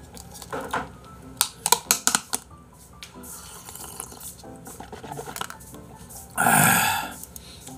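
Seaweed soup being drunk straight from a plastic takeaway container: a few sharp clicks as the container is handled, then sipping and swallowing. About six and a half seconds in comes a loud, short, breathy burst after the sip.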